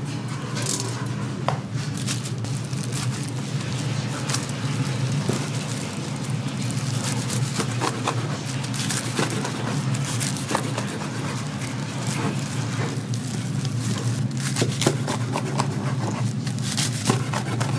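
Street-food stall kitchen work: utensils and tools clicking, tapping and scraping at irregular moments over a steady low hum.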